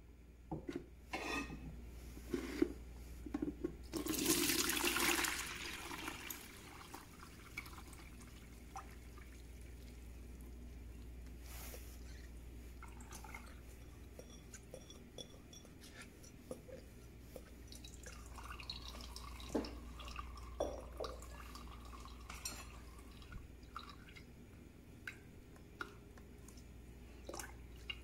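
Blanched huauzontle and its ice water poured from a glass measuring jug into a wire-mesh strainer over a bucket: a splashing pour for about a second and a half, starting about four seconds in, then water dripping through the mesh with scattered light clicks and taps.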